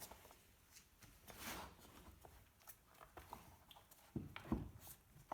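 Faint handling noises as a diesel heater is worked on: a brief scrape about a second and a half in, small clicks, and a few soft knocks near the end.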